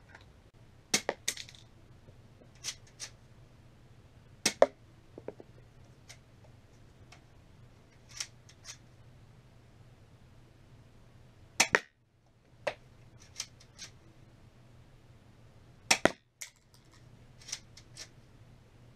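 Chinese airsoft M9 pistol firing single shots, each a sharp snap, with lighter clicks in between. The four loudest snaps are spread out: about a second in, at four and a half seconds, near twelve seconds and at sixteen seconds.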